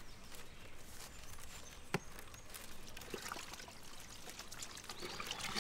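Water running and trickling from a garden hose as something is rinsed by hand, with one sharp click about two seconds in.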